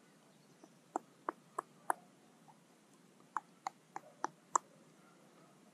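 Faint sharp ticks, about three a second, in two runs: four about a second in and five more past the middle.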